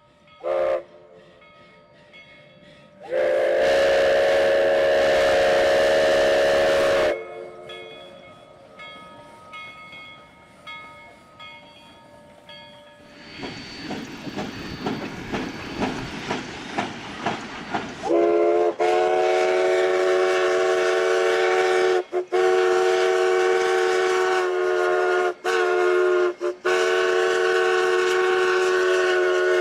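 Steam locomotive whistle blown as a short toot and then a long blast of several tones. This is followed by a stretch of exhaust chuffs that come faster and louder, and then a long whistle with three brief breaks near the end.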